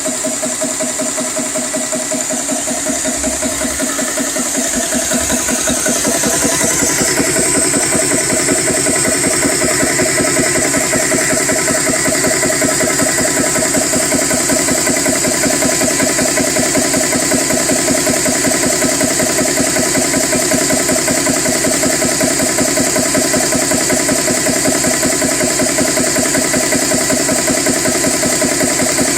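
GX CS3 high-pressure PCP air compressor running steadily while filling an air rifle, its small piston pump chugging in a fast, even rhythm. It gets a little louder about six seconds in.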